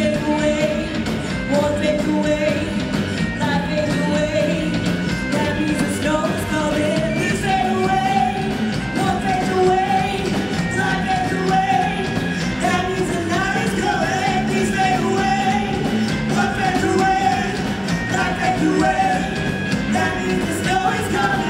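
Live rock-and-roll band playing: a woman sings lead over keyboard, guitar and a drum kit.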